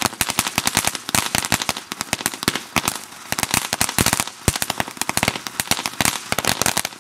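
Ground fountain firework crackling as it sprays sparks: a dense, irregular run of sharp pops and cracks, many a second.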